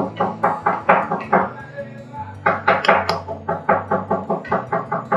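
Background music with a quick, steady beat of evenly spaced notes over a held bass note.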